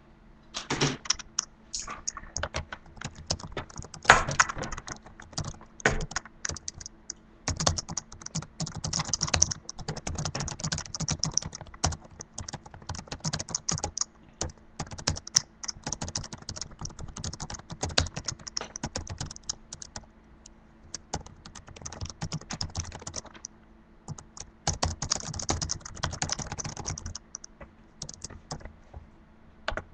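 Rapid typing on a laptop keyboard: loud runs of clicking keystrokes broken by brief pauses, with a longer lull near the end.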